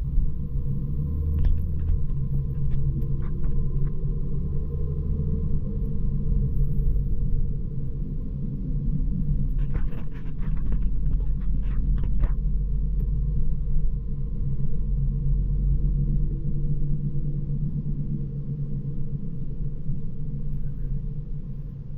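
Steady low rumble with a few faint clicks, once about two seconds in and again in a short cluster about ten to twelve seconds in.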